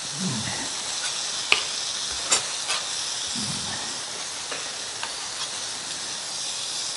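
Beef chuck steaks sizzling on a flat-top griddle, a steady hiss, with a few sharp taps of a knife on a wooden cutting board as cooked meat is cut.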